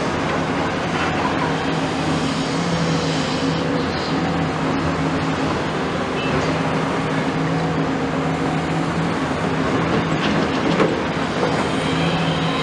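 Diesel engine of a Caterpillar tracked hydraulic excavator running under load as it swings its boom and digs with the bucket, a steady drone whose engine note swells and falls back several times. A single sharp knock about eleven seconds in.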